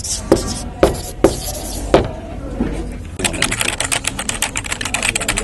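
A series of sharp knocks with a scraping hiss, about two a second, then from about three seconds in a rapid run of dense clicking and crackling.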